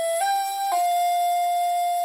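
Shakuhachi playing a melody: two short notes, then a long note held steady without vibrato (yuri), the closing note of the phrase.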